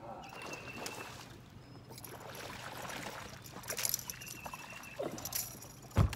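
A hooked bass splashing and thrashing at the surface beside the boat as it is brought in, over a steady low hum. A loud single thump comes just before the end.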